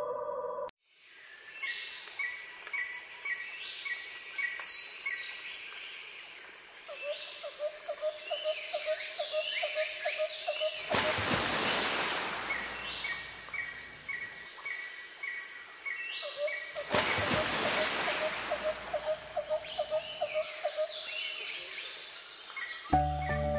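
Forest ambience of birds calling: repeated short chirps, whistled calls that slide downward, and a low quick trill of about four notes a second. Two loud hissing bursts, each a couple of seconds long, come about six seconds apart.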